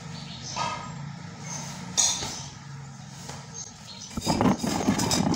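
A baby's hands and a plastic cup knocking on a tiled floor, a few separate sharp clicks, then from about four seconds in a busier, louder patter of hands and knees on the tiles as she crawls away, over a low steady hum.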